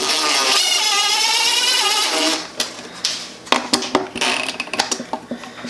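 Cordless drill/driver running for about two seconds, driving a screw to secure an electrical box, its motor whine wavering slightly under load. Then come a few clicks and handling knocks.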